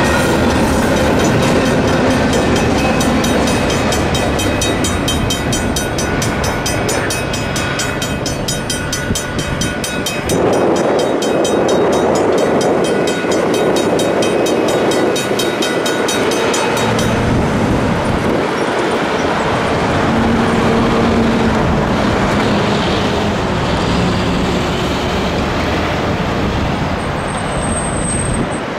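Railroad crossing bells, a Griswold mechanical bell and a Safetran Type 1 electronic bell, ring rapidly over the rolling clatter of a double-stack intermodal freight train's cars passing. The bells cut off about two-thirds of the way through as the crossing gates go up, and road traffic is then heard moving off.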